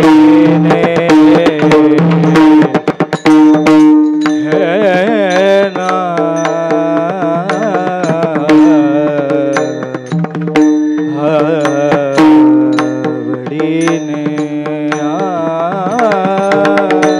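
A male voice sings a Marathi devotional bhajan with long, ornamented held notes. He is accompanied by small hand cymbals (taal) struck in a steady rhythm, a drum and a sustained drone.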